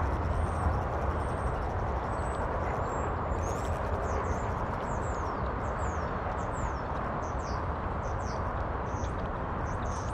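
Small songbird calling: thin high whistles at first, then from about three seconds in a quick run of high, falling chirps, roughly two a second, over a steady rushing background noise.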